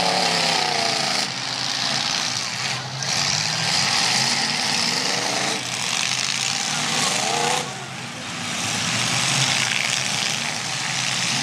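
Demolition derby cars' engines running loudly in the arena, revving up and down several times over a dense, steady mechanical din.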